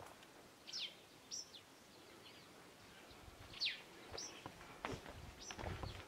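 A bird calling, repeated about three times: a sharp falling chirp followed by a short higher note.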